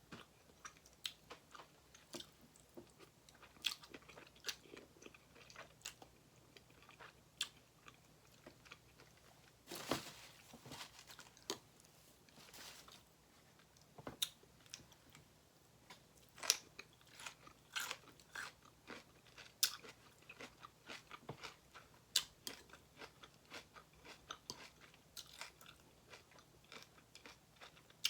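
Close-up eating sounds: a person chewing and crunching food with many sharp, irregular crunches. There are a couple of longer hissing sounds about ten and twelve seconds in.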